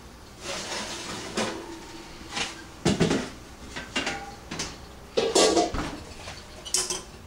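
Metal pots and lids clattering and knocking as cookware is handled on the stovetop and a roasting pot's lid is lifted: a string of separate knocks, loudest about three seconds in and again just past five seconds.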